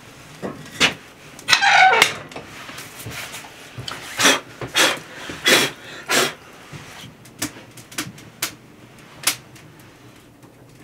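A person blowing hard on freshly lit kindling in a wood-burning stove's firebox: a long breath about a second and a half in, then four short puffs a little over half a second apart. A few sharp clicks follow.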